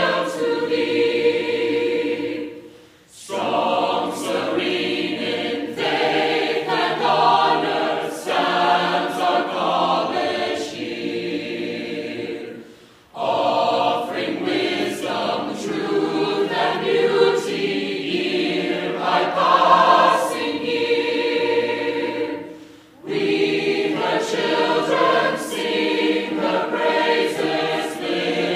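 Soundtrack music with choir-like singing. The music dips out briefly three times, about ten seconds apart, between phrases.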